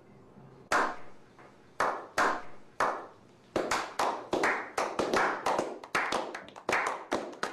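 A small group of men clapping hands in a slow clap. Single claps come about a second apart at first, then pick up from about halfway into quicker, overlapping clapping.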